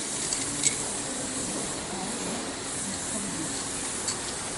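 Aerosol spray-paint can hissing steadily as paint is sprayed onto a wall, with a single short click a little under a second in.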